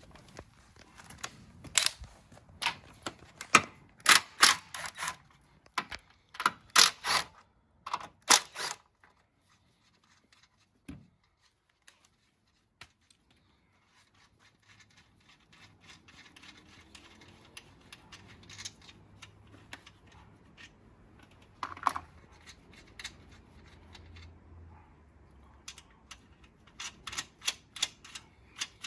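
Metallic clicks and clinks of hand tools and fasteners being worked on a car's strut mount. They come in quick clusters over the first nine seconds and again near the end, with a nearly quiet stretch between.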